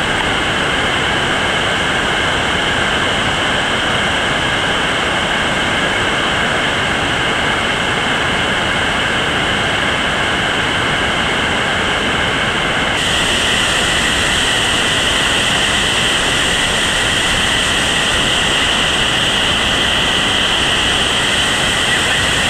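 Loud, steady rush of whitewater rapids on a creek running high. About thirteen seconds in, the sound shifts suddenly to a brighter, hissier rush of water.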